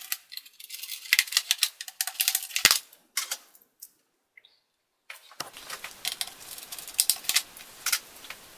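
Rapid sharp plastic clicks and taps from a screwdriver working the screws and the laptop's plastic RAM and hard-drive access cover being unclipped from the base. The clicks come in two runs separated by a brief silence.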